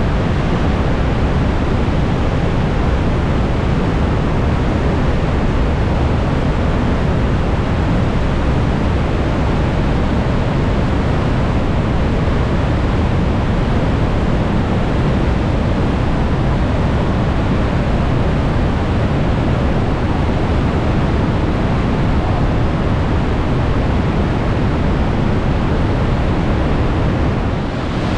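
Glacier-meltwater waterfall rushing: a loud, steady rush of falling water, strongest in the deep low end.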